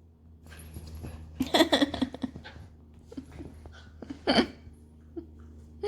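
A dog's short huffs and grumbles with scuffling. There is a cluster of noisy bursts about a second and a half in and one short, sharp burst just after four seconds.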